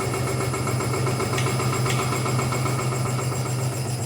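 Suspension test machine shaking a Ford Ranger pickup, a steady low mechanical hum, with two faint clicks about a second and a half and two seconds in, as the truck's loose parts knock.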